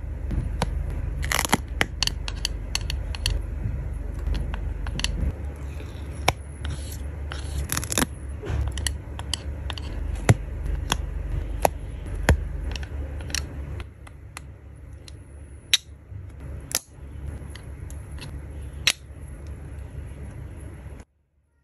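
Stickers being picked and peeled off a plastic sticker sheet with tweezers and pressed on by hand: a run of small crackles, scrapes and sharp clicks. The sound stops abruptly near the end.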